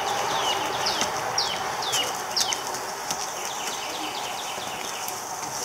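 Baby chicks peeping: a string of short, high peeps that each slide downward in pitch, thickest in the first three seconds and thinning out after, over a steady high hiss.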